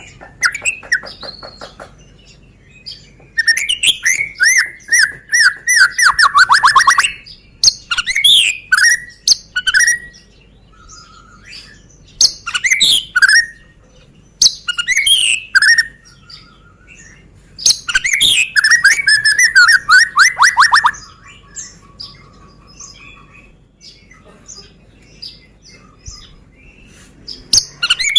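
White-rumped shama (Medan murai batu) singing loud, varied phrases of clear whistles and sharp notes, separated by short pauses. Twice, about four seconds in and again past the middle, the song breaks into a long run of rapid repeated notes that slide downward.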